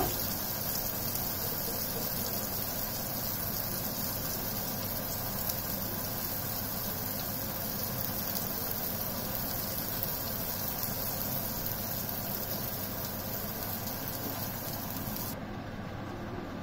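Aubergine slices frying in hot oil in a frying pan, with a steady sizzle. The sizzle cuts off suddenly near the end, leaving a quieter hiss.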